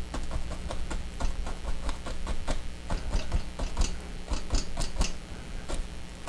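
Small fan brush stippling and tapping oil paint onto a canvas to form trees: quick, irregular soft taps, several a second, over a low steady hum.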